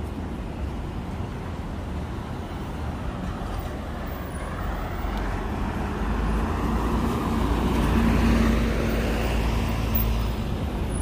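A coach bus driving past close by, its engine rumble swelling to a peak about eight seconds in and then easing, over steady traffic noise.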